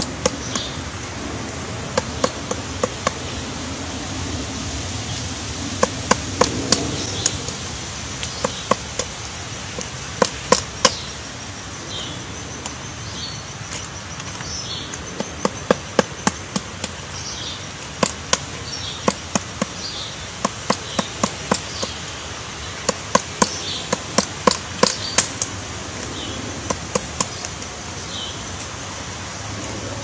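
Pileated woodpecker excavating a hole in a decaying tree trunk, its bill striking the wood in quick bursts of several sharp knocks with short pauses between.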